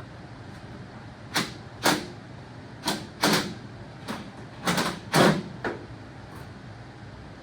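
Six short metal clunks and rattles, coming roughly in pairs, from hand tools and parts being handled while the hood panels come off a John Deere 3020 tractor.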